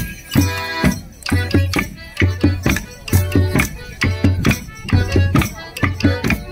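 Live morris dance music: a folk tune played over a drum beating in pairs about once a second, with sharp clacks of the dancers' wooden sticks.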